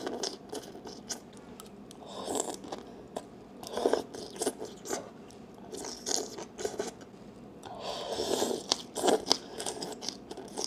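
Close-miked eating sounds: leafy green vegetables from a bowl of soup slurped in and chewed crisply, with wet mouth clicks throughout. Louder slurps and bites come about 2, 4, 6.5 and 8 to 9 seconds in.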